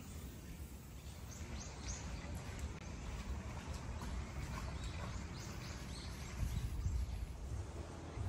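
Outdoor ambience: a steady low wind rumble on the microphone, with a few faint high bird chirps in the first few seconds.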